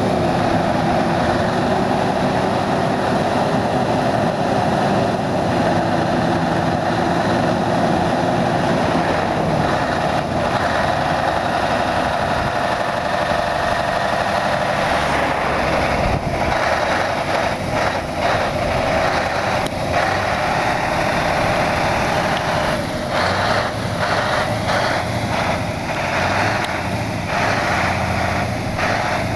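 Scania R620's V8 diesel engine idling steadily, then working harder as the truck with its car-transporter trailer moves off, from about halfway through.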